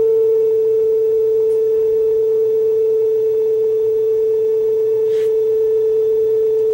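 A single steady, pure test tone played back from cassette on the Sony deck's B transport, used to set tape speed by pitch, just after its speed trimmer has been adjusted so the tone reads on pitch. It cuts off suddenly at the very end.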